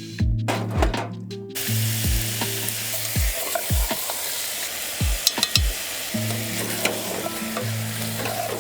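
Food in a hot pan starts sizzling about a second and a half in and keeps frying, with a few clinks of a utensil stirring around the middle.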